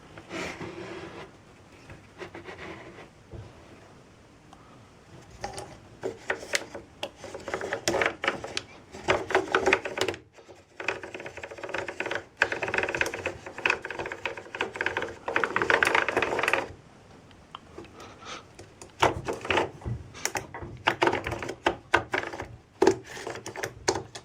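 Irregular clattering and scraping of hard objects, in bursts of many sharp clicks and knocks with some ringing, pausing around the middle.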